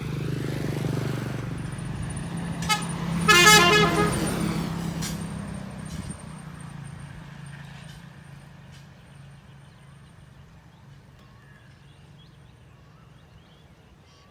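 A motor vehicle's engine going by, sounding its horn with a short toot and then a longer honk about three and a half seconds in. The engine sound then fades steadily as it moves away.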